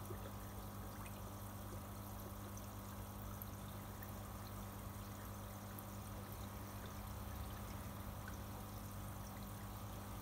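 Water trickling and splashing steadily into a fish tank, over a low steady hum.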